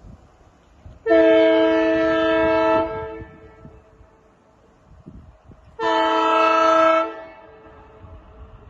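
Two blasts of a WDP4D diesel locomotive's air horn, a chord of several steady tones that the uploader likens to an Alco horn. The first starts about a second in and lasts under two seconds; the second, shorter one comes about six seconds in.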